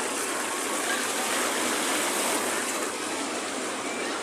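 Sea surf washing steadily on the shore, an even rushing noise that eases slightly about three seconds in.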